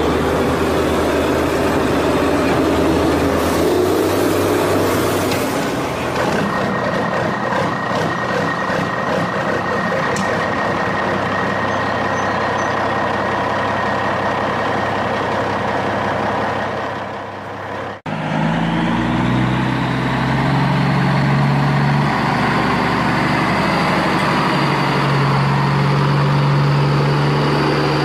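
A large truck engine running. The sound cuts off abruptly about two-thirds of the way through, then resumes as a steadier low engine drone with a faint rising whine.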